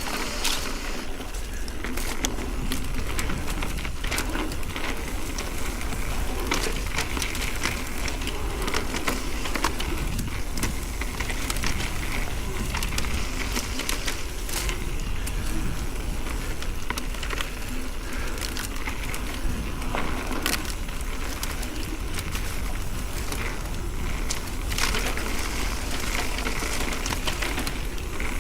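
Ibis Oso electric mountain bike riding a dirt trail: tyres crunching over gravel and dirt, with frequent clicks and rattles from the bike over a steady low rumble.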